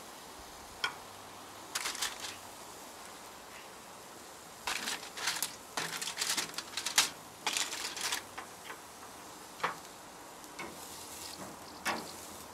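Meat sizzling on a charcoal grill while metal tongs click, tap and scrape against the grate and an aluminium foil tray as the pieces are laid on and turned. The clatter comes in short flurries, thickest in the middle.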